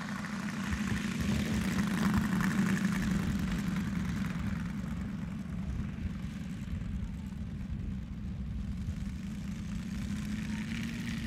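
A model biplane's seven-cylinder radial engine running at low throttle as the plane taxis on grass after landing. It is louder about two seconds in as it passes close, then steadies, and the pitch rises a little near the end as the throttle is opened slightly.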